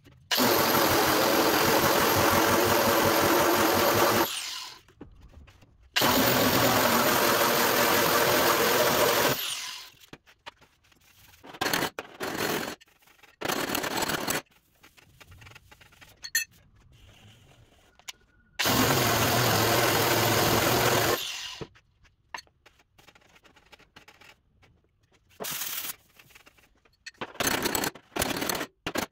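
Electric angle grinder with a disc sanding down a welded sheet-steel seam, run in three bursts of a few seconds, its high motor whine falling away after each. In between and near the end, quieter short scrapes and knocks from hand work on the metal.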